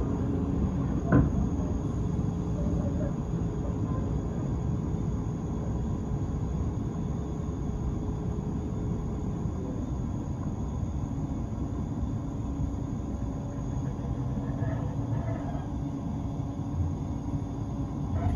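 Inside a moving S-Bahn commuter train: the steady low rumble of the wheels running on the rails, with a single sharp knock about a second in. A faint steady whine sits under the rumble and fades out about halfway through.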